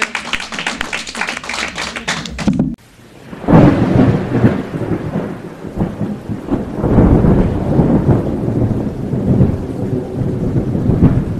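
A short run of rapid clapping that cuts off abruptly. Then a thunderstorm sound effect: a loud thunderclap, followed by rolling thunder over steady rain.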